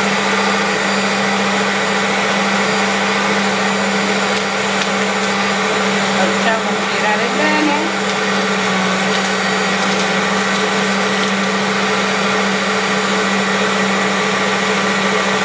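Bosch 450 W hand mixer on its stand, running steadily with an even motor hum as its beaters whip a liquid egg-and-oil cake batter in the bowl.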